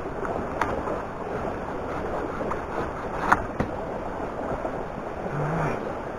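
A machete chopping into a standing wooden log: three sharp chops, a lighter one near the start and a close pair, the loudest, about three seconds in. A steady rushing noise runs underneath.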